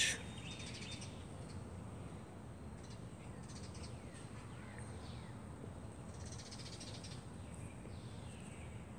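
Faint bird chirps, a few short falling notes now and then, over a low steady background hum.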